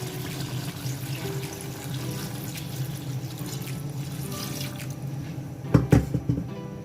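Water being poured into a large cooking pot of crabs and masala, a steady pouring splash. About six seconds in come a few loud clanks, a vessel knocking against the pot.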